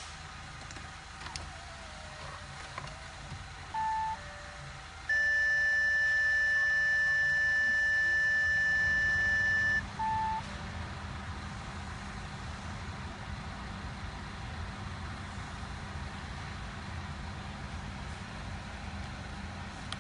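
Electronic tones in an Audi A6's cabin: a short beep, then a loud steady tone lasting about five seconds, then another short beep. After that a steady low hum runs on.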